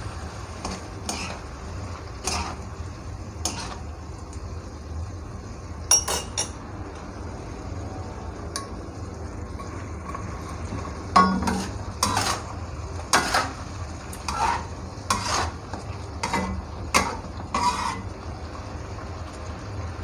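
Metal spatula scraping and knocking against a wok while snow peas and mushrooms are stir-fried. There are a few strokes early on and a quicker run of them in the second half, over a steady low hum.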